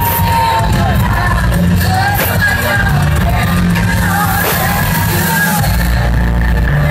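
Live amplified pop music with a female singer singing into a microphone over a strong bass line, played loud through a hall's sound system.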